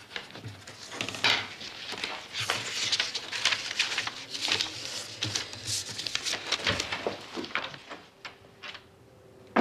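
Irregular rustling and light clattering with small knocks, as of things being handled. It dies away about eight seconds in.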